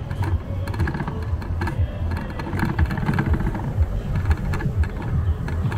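Wind rumbling on the microphone of a camera carried on a moving bicycle, with small rattles and knocks from the bike as it rolls over the paving.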